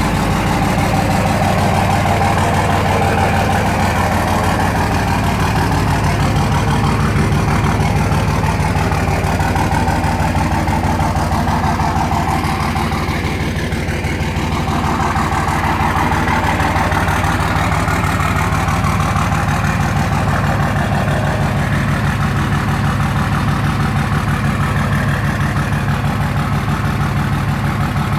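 2004 Dodge Ram's 5.9 L Cummins inline-six turbodiesel idling steadily once warmed up, with an even low pulse; the owner puts its running down to bad injectors.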